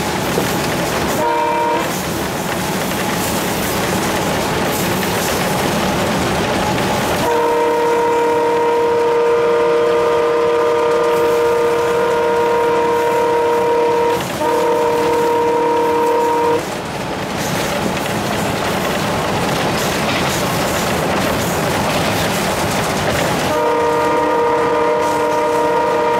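Alco WDM3A diesel locomotive running at speed, heard from inside its cab, with steady engine and rail noise. Its air horn sounds a short toot about a second in, then a long steady blast with one brief break, and starts another long blast near the end.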